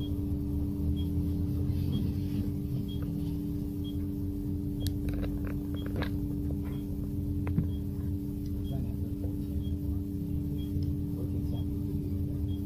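Cabin of a Xiamen King Long electric low-floor midibus: a steady hum from the electric drive over a low rumble, with a faint regular tick in the background. A few short light clicks and rattles come around the middle.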